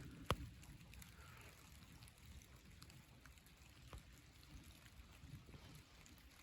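Faint outdoor quiet: a low, steady wind rumble with scattered light taps, one sharper tap about a third of a second in and another about four seconds in.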